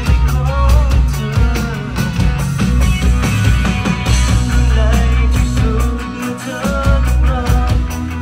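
Rock song playing loud, with a sung melody, guitar and a steady drum beat; the drums are played live on a Roland electronic drum kit along with the track.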